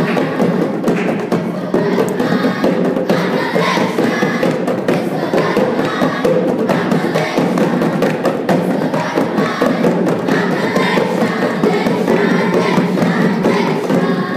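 Children's choir singing and clapping their hands in rhythm, accompanied by djembe hand drums.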